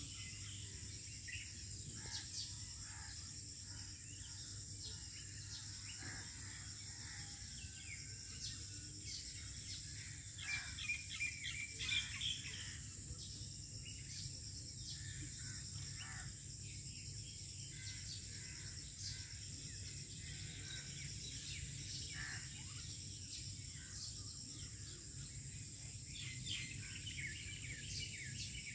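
Outdoor ambience: small birds chirping on and off, with a loud cluster of chirps about ten to twelve seconds in, over a steady high hiss and a low steady hum.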